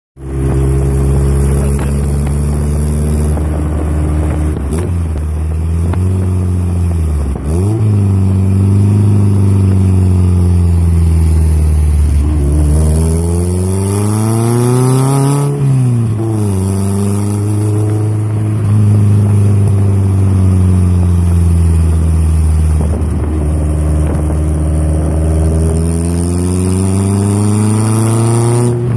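Engine of a Westland open car under way, heard from the cabin with wind and road noise. The engine note rises as it accelerates and drops at each gear change or lift-off; the sharpest climb comes about halfway through, followed by a sudden drop.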